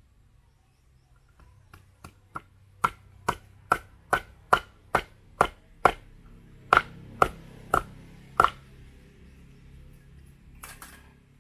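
Large knife chopping into a nipa palm fruit segment on a wooden chopping block: a run of about a dozen sharp chops, a little over two a second, starting light and getting harder, stopping about three-quarters of the way through. A short clatter near the end.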